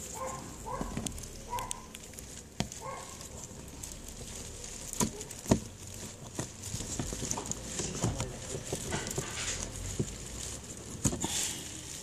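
A flat-blade screwdriver scraping and tapping on plastic as it pries at plastic push clips in a car's plastic trim panel, with irregular sharp clicks and knocks. The loudest knock comes about halfway through.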